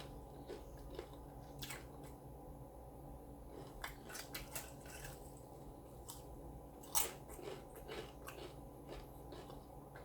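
Close-up chewing of a taco, with scattered short wet mouth clicks; the sharpest click comes about seven seconds in.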